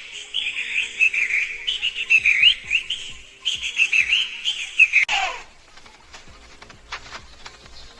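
Rapid high-pitched peeping of a baby chick, over faint background music. About five seconds in, one call slides steeply down in pitch, and after that it goes quieter.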